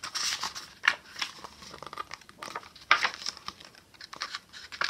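Paper pages of a hardback book being turned and flipped by hand: papery rustling and fluttering, with sharper page flicks about a second in and about three seconds in.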